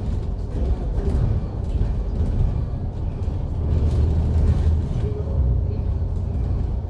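MAN Lion's City double-decker bus under way, heard from inside the cabin: a steady low engine and road rumble that swells a little about four seconds in.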